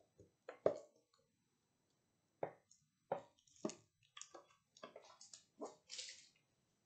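A clear plastic bag of thick cream being squeezed and handled by gloved hands: a string of irregular soft squishes and plastic rustles as the cream plops into a glass bowl.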